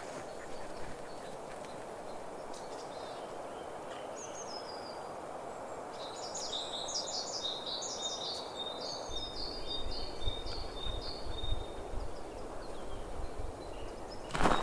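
A small songbird singing a quick series of short, high chirped notes, starting about six seconds in, over steady outdoor wind noise. Wind rumbles on the microphone in the second half.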